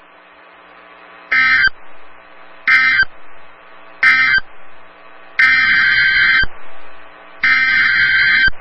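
NOAA Weather Radio Emergency Alert System (SAME) data bursts, a buzzing two-tone digital code. First come three short end-of-message bursts about a second apart, closing the previous flood warning. Then come two longer header bursts, a second apart, that open the next flood warning.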